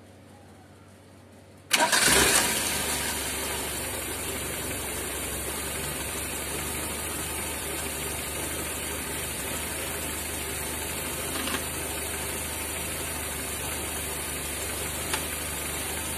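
Toyota Corolla Twincam engine started, catching almost at once with a loud burst and then settling into a steady idle. The owner puts the strange noise he is checking for down to a failed PCV valve.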